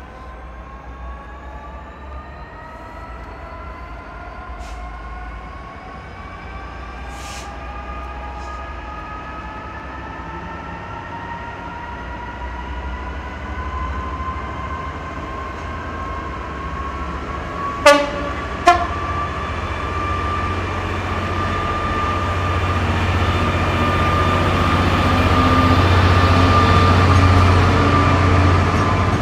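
A Class 66 diesel locomotive hauling a container freight train approaches and passes, its engine note rising slowly and growing steadily louder. Two short horn toots come about eighteen seconds in. Near the end the container wagons run past loudly.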